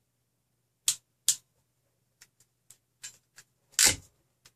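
Wire cutters snipping the ends off stranded copper wire: two sharp clicks about a second in, then a few faint ticks of handling and a louder clack near the end.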